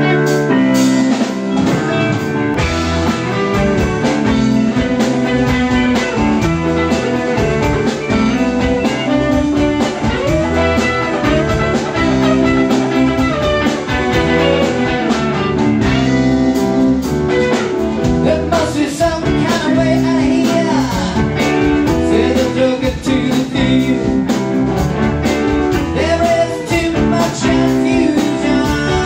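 Live band playing loud, steady blues-rock with electric guitars, keyboard and drums, the lead guitar bending notes.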